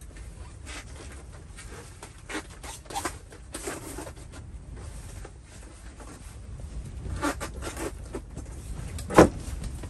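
Soft rustling and a few light knocks, then one sharp crack about nine seconds in, the loudest sound here, which the fisherman calls a board snapping on the ice.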